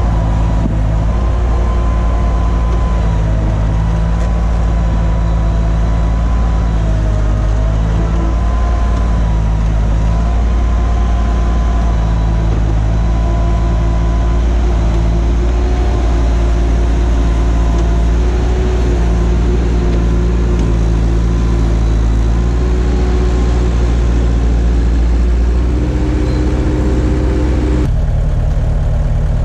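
Bobcat 864 compact track loader's diesel engine running steadily under load as the machine pushes and grades dirt with its bucket, with a whine above it that wavers in pitch. Near the end the sound changes abruptly to a different, steadier engine note.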